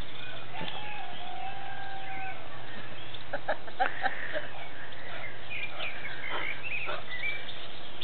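Birds chirping and whistling outdoors, many short calls, with a few light clicks about four seconds in over a steady low hum.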